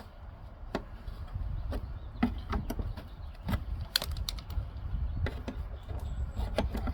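Scattered light clicks and knocks of hands handling metal and plastic parts while refitting a lawn mower's drive belt and cable, over a low rumble.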